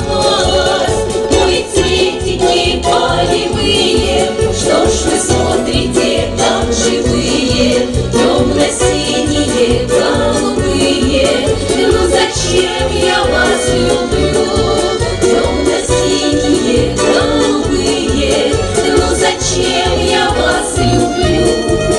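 Russian folk ensemble singing in chorus, with a steady beat underneath.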